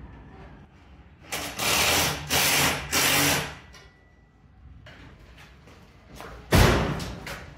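Cordless drill driving a screw into the wooden greenhouse frame in three short runs, one after another. A single loud thump follows near the end.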